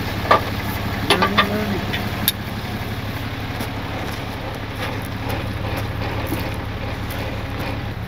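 Pickup truck engine idling steadily while its front winch line is pulled out by hand, with a few light clicks in the first couple of seconds.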